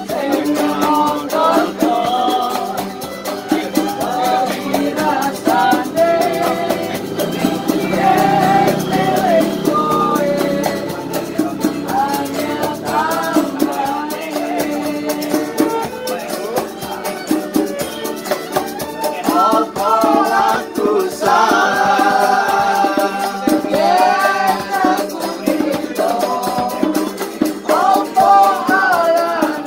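Street musicians playing a song: a voice singing over guitar, with a shaker rattling in a steady rhythm.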